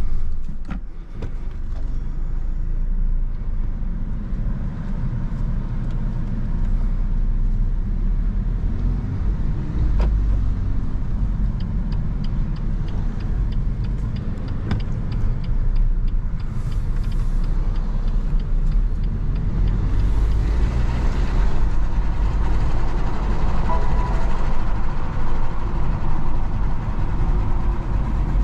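Cabin sound of a BMW 218i Active Tourer's 1.5-litre petrol engine and tyres as the car pulls away and drives at low city speed, a steady low hum and road rumble. Partway through, the turn-signal indicator ticks evenly for a few seconds during a turn, and the engine and road noise grow louder near the end as the car picks up speed.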